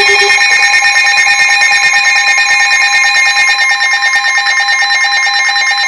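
Weather radio's alert alarm sounding for an incoming warning: a loud, harsh electronic tone pulsing very rapidly and holding steady throughout.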